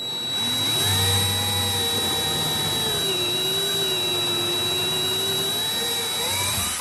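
Drill running a combination countersink bit into a 3/4-inch melamine-faced particleboard panel, cutting the pilot hole and countersink in one pass. Its motor whine drops in pitch as the countersink cutter bites in about three seconds in, rises again near the end, and then the drill stops.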